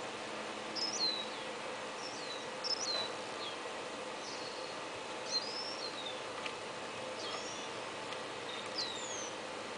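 Small birds chirping: short, high notes that sweep quickly downward, repeated irregularly about once a second, over steady background noise.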